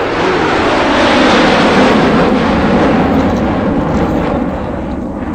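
Plastic toy helicopter running with its rotor turning: a loud, steady whirring, rattling noise from the toy.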